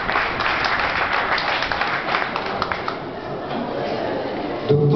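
Audience applauding, the clapping thinning out after about three seconds. A pitched voice starts up just before the end.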